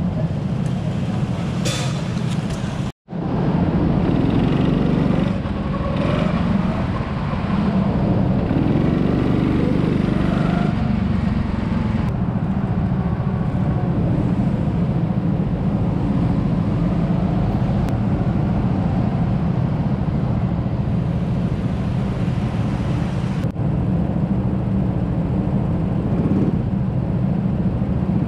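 Onboard rental go-kart engine running steadily while the kart is driven round the track, its pitch rising and falling a little with the throttle. The sound cuts out for an instant about three seconds in.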